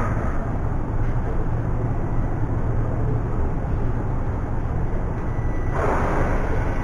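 Metro train running underground, heard from inside the carriage: a steady low rumble and rushing noise of the wheels on the rails, with a brief louder rush about six seconds in.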